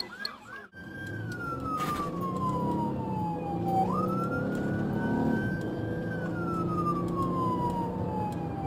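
Police car's electronic siren: a brief fast yelp, then a slow wail that falls, jumps back up about four seconds in, rises and falls again. It is heard from inside the moving cruiser over engine and road noise.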